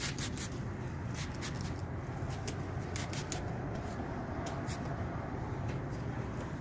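Trigger spray bottle squirting shampoo: a series of short, sharp spritzes at irregular intervals over a steady low rumble.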